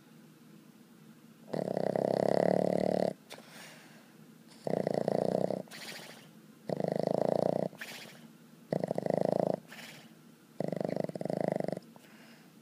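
Boston Terrier snoring in its sleep: five loud, rasping snores about a second long, coming roughly every two seconds after a quiet first second and a half, with softer breathing sounds between them.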